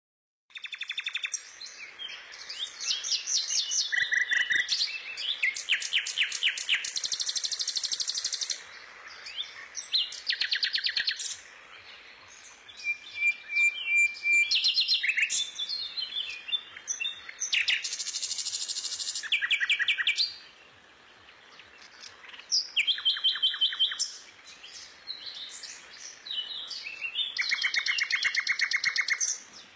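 Songbird singing: long phrases of rapid, high trills and chirps, with short pauses between phrases.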